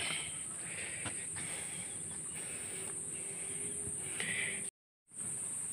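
Steady high-pitched insect chorus, a continuous shrill drone, cut off by about half a second of silence near the end before it resumes.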